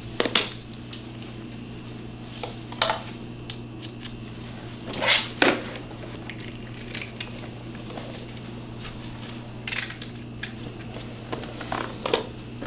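Handling noise as a half-mask respirator is strapped on and a plastic welding helmet is picked up, adjusted and pulled down over the head: scattered clicks, knocks and rustles of plastic and straps, several of them close together about five seconds in, over a steady low hum.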